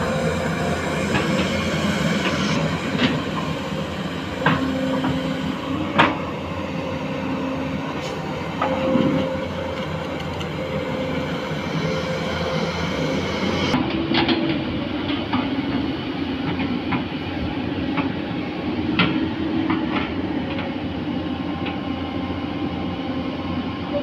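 Diesel engines and hydraulics of tracked excavators running steadily: a JCB excavator stuck deep in mud and a Tata Hitachi 210 working beside it. Sharp metal clanks come every few seconds.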